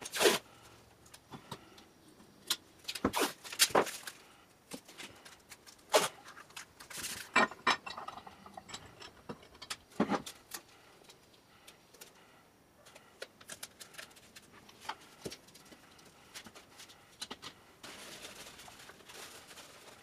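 Blue painter's tape being pulled off the roll and pressed onto cast-iron vise parts, with scattered clinks and knocks as the metal parts are handled on a bench. Near the end there is a stretch of steady rustling.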